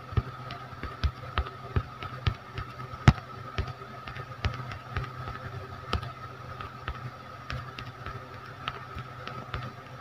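Typing on a smartphone's on-screen keyboard: a quick, irregular run of short tapping clicks, several a second, that thins out toward the end, over a steady faint hum.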